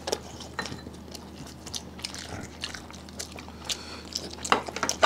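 Close-up eating sounds: chewing and biting, heard as a string of small, irregular wet clicks, with a louder burst near the end.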